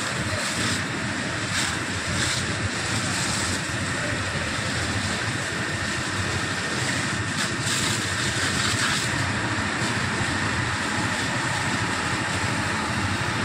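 Steady rushing hiss of several high-pressure fire hose jets spraying water onto a burning power transformer, with a few brief crackles.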